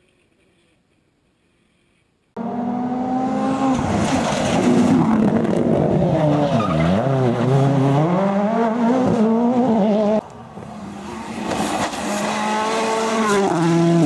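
Near silence, then about two seconds in a World Rally Car engine cuts in suddenly and loud: a turbocharged four-cylinder Ford Fiesta RS WRC, its pitch climbing and falling through gear changes, with one sharp dip and recovery midway. About ten seconds in the sound drops abruptly to a quieter rally car engine that grows louder with rising pitch.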